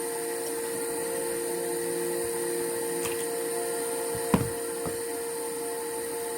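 Steady whirring hum of a small electric motor or fan, holding a fixed pitch, with a single sharp click a little over four seconds in.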